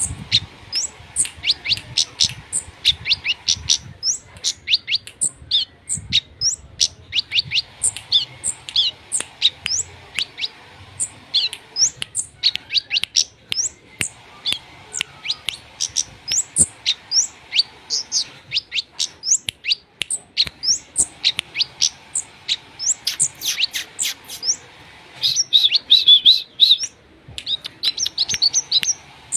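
A songbird known to Indonesian birdkeepers as kemede, singing a long, rapid series of short, sharp chirping notes, several a second, with a denser warbling burst near the end.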